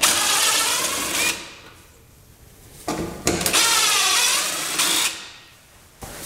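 Power drill-driver running in two bursts, about a second and a half, then about two seconds, its motor whine wavering in pitch as it backs out the two 5/16 bolts holding a Craftsman 917 lawn tractor's worn steering column support bushing.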